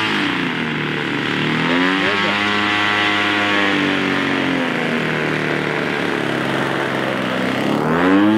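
38cc two-stroke gas engine of a large RC plane running while it taxis on grass. Its pitch swells and falls away about the middle as the throttle is opened and eased, and climbs again near the end.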